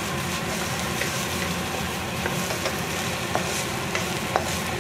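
Chopped onions sizzling as they fry in a wok, stirred and scraped with a wooden spatula, with a few sharp knocks of the spatula against the wok.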